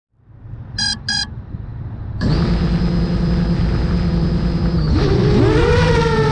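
Two short beeps, then the brushless motors of an FPV quadcopter (T-Motor Velox 2306.5 1950kv on 5.5-inch props) start suddenly about two seconds in and run at a steady idle whine. About five seconds in their pitch rises and wavers as the throttle comes up.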